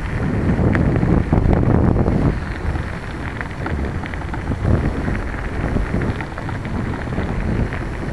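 Wind rushing over a bike-mounted microphone, over the crackle of bicycle tyres rolling on a gravel towpath.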